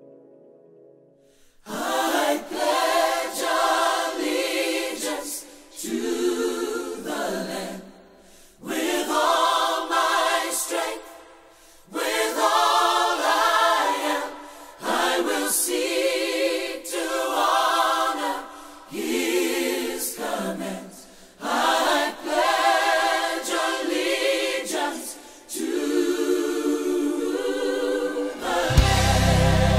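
A choir singing a cappella in phrases of a few seconds each, with vibrato and short breaths between them. Near the end, instrumental music with a deep bass comes in.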